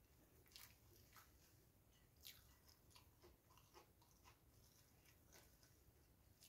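Very faint eating sounds: soft chewing and fingers working rice in a glass bowl, with a few small scattered clicks.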